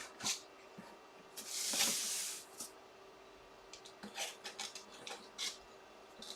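Packaging being handled as the second box is opened: a ripping sound about a second and a half in, then light rustles and clicks.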